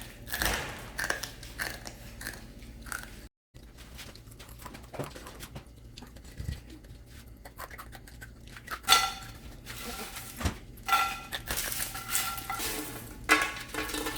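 Homemade cornmeal corn flakes crunching as they are chewed: irregular crisp crackling crunches, louder in the second half, with a brief cut to silence about three seconds in.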